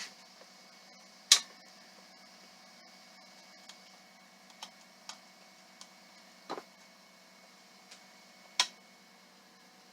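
High-lift jack being worked under load against a wheel rusted onto its hub: scattered sharp metal clacks at irregular intervals, with a loud one about a second in and another near the end.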